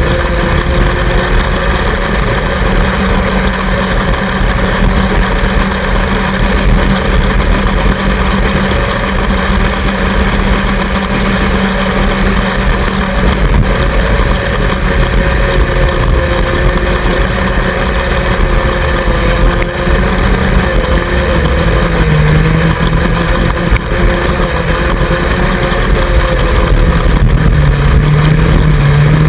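Racing lawnmower's engine running hard, heard close from onboard. Its note holds fairly steady, wavering a little with the throttle and dropping lower near the end, over a constant low rumble.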